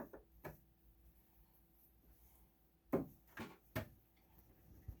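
A few scattered knocks and clicks of needle-nose pliers being handled against the oscilloscope's plastic foot and metal case, the loudest three close together about three seconds in, with a low thud near the end.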